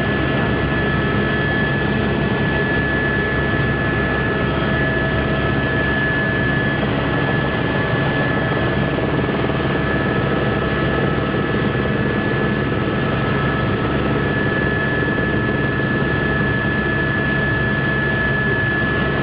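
Helicopter in flight: a steady rotor and engine drone with a constant high whine running through it.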